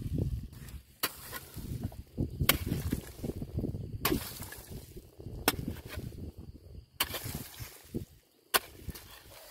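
Digging tool chopping into soil, about six sharp strikes roughly a second and a half apart, with rustling and shifting of loose earth between them.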